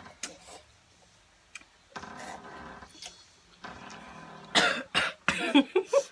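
A person coughing, a burst of several harsh coughs in quick succession starting about four and a half seconds in, set off by the chili heat of spicy fire noodles.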